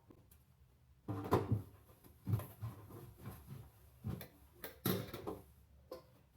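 Irregular knocks and clunks of kitchen things being handled and set down, like cupboard doors and drawers closing.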